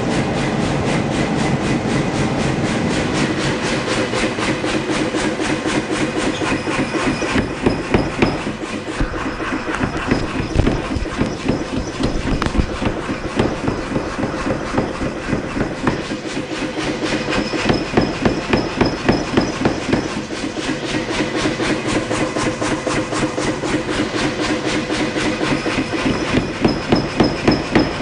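Steady roar of a gas forge with runs of rapid, evenly spaced hammer blows, about four a second, on a hot jacketed Damascus billet being forge-welded.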